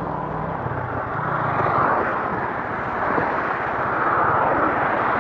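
Small single-cylinder motorcycle engine running at low speed under a steady rush of wind and highway traffic noise, which swells twice.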